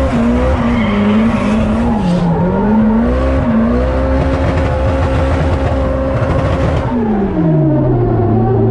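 Nissan Silvia S15 drift car's engine heard from inside the cabin, its revs rising and falling as the throttle is worked through a drift, with tyre squeal. About seven seconds in the tyre noise stops and the revs fall away steadily.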